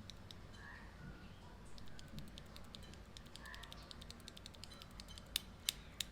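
Typing on a mechanical keyboard fitted with Akko CS Ocean Blue tactile switches: a quick run of soft keystroke clicks, with a few louder key presses near the end.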